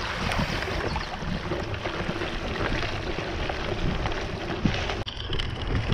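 Bicycle tyres rolling and splashing through standing water on a flooded trail, with wind buffeting the microphone. The sound changes abruptly about five seconds in.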